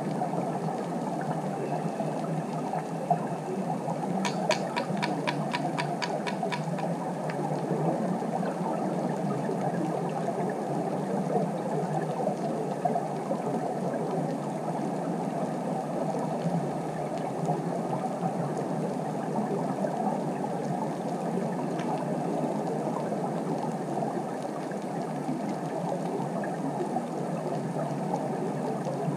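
Underwater ambient sound picked up by a camera in its housing: a steady, even noise. About four seconds in there is a short run of sharp clicks, about four a second, lasting two to three seconds.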